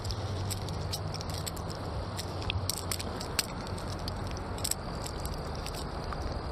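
Handling noise: small scattered clicks and light rattles over a steady low rumble as a freshly caught brown trout is held in the hand.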